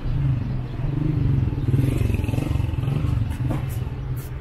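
Motor vehicle engine running close by on a city street, its low hum swelling about a second in and staying loud, with a few light clicks near the end.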